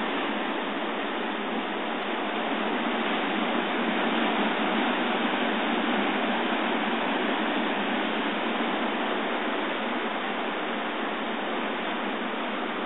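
High-tide surf breaking and washing over a rocky shore: a steady rush of water that swells slightly partway through, thin-sounding through a phone's microphone.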